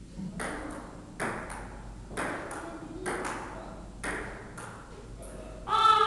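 Table tennis rally: the ball clicks off paddle and table in quick pairs, about one exchange a second. Near the end a person's voice cries out, falling in pitch, louder than the clicks.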